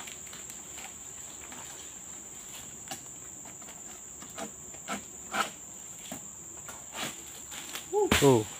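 A steady, high-pitched drone of tropical insects, with scattered knocks and scrapes from a long-pole palm sickle working in an oil palm crown. A brief voice comes in near the end.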